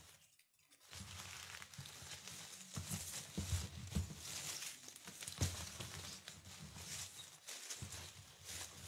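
Leafy ivy stems rustling and crackling as they are handled and woven into a wreath, starting about a second in, with a few sharper snaps among the rustle.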